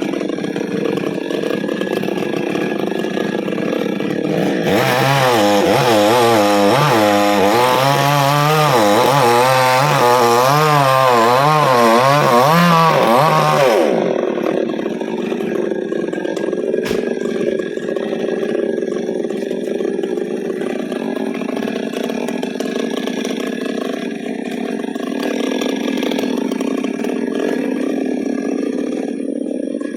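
Petrol chainsaw idling, then opened up about five seconds in, its pitch wavering up and down for about nine seconds as it cuts into a coconut tree trunk, before dropping back to a steady idle.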